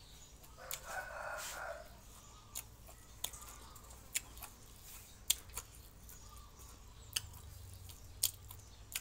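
A rooster crows once, for about a second, just under a second in. Scattered sharp clicks and taps follow from handling food at the table.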